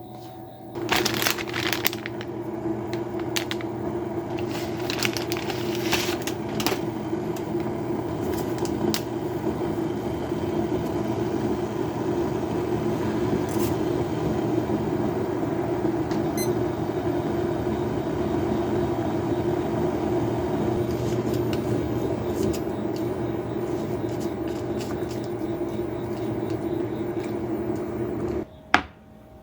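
A steady mechanical hum, like an appliance or fan running, with a few clicks and rustles in the first few seconds. It cuts off suddenly near the end.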